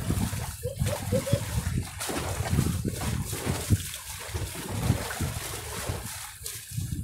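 Shallow seawater sloshing and splashing against rocks as a mesh net is dipped and pulled through it. About a second in there is a short run of four or five quick, high chirps.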